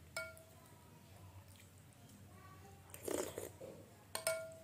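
Metal spoon clinking against a glass bowl, the glass ringing briefly after each strike: one clink just after the start and a louder one near the end, with a few lighter taps between. A short noisy eating sound comes about three seconds in.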